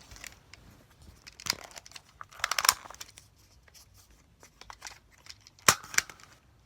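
A few short clattering, scraping noises: one about a second and a half in, a longer rattle around two and a half seconds, and a sharp knock near six seconds, the loudest.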